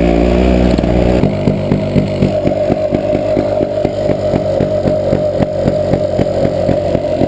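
Honda XR250 trail bike's single-cylinder four-stroke engine running. It holds a steady higher speed, drops about a second in, then chugs at low revs with an even, rapid beat of pulses.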